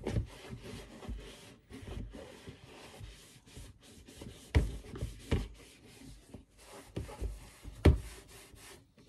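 Close rubbing and handling noises, fabric and objects scraping and shifting, broken by several sharp knocks, the loudest near the end.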